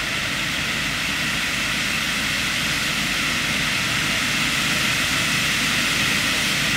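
A row of fireworks ground fountains spraying sparks: a steady rushing hiss that grows slightly louder.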